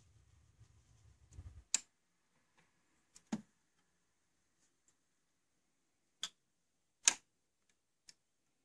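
Pioneer PL-530 direct-drive automatic turntable's tonearm and auto-return mechanism clicking: a faint low rumble stops with a sharp click a little under 2 seconds in, followed by four more separate clicks, the loudest about 7 seconds in.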